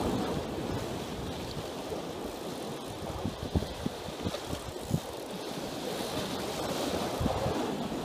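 Choppy sea water sloshing and churning, with strong gusty wind buffeting the microphone in irregular low rumbles.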